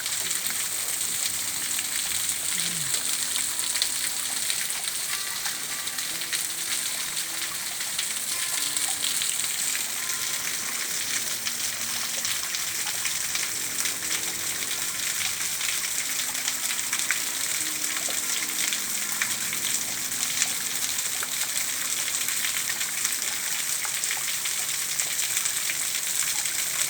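Waterfall: water falling and splashing in a steady, even hiss.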